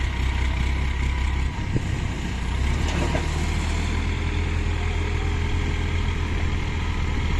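ACE mobile crane's diesel engine running steadily while it works the boom, its low note shifting slightly about a second and a half in.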